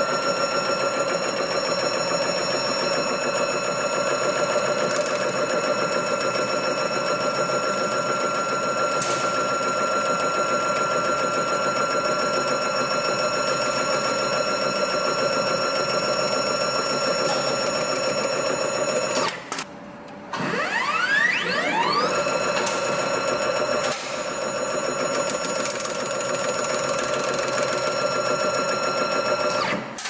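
Semi-automatic tape winding machine (AT-080) running, its rotating tape head giving a steady high-pitched ringing whine as it wraps tape around a wire harness. About 19 seconds in it stops briefly, then spins back up with a rising whine, runs steady again and cuts off near the end.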